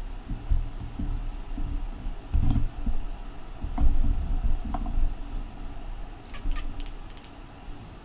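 White Munchkin cat chattering in short, irregular bursts, with a quick run of small clicks near the end.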